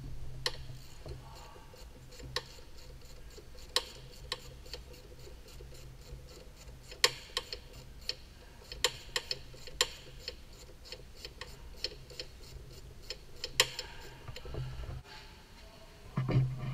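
Ratchet wrench clicking in short, irregular runs of sharp ticks as the two 13 mm bolts on the clutch slave cylinder are undone.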